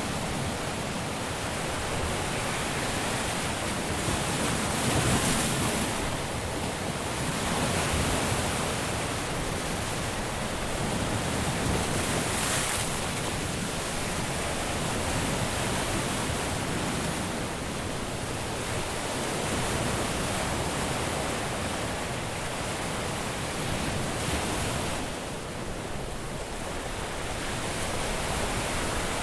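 Caribbean surf washing onto a beach: a steady hiss of breaking waves that swells and eases every few seconds.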